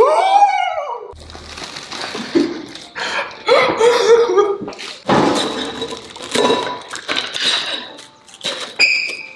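People laughing and shrieking, with a loud rising-and-falling cry at the start. Short clinks and knocks, like bowls and utensils handled on a hard surface, run through it.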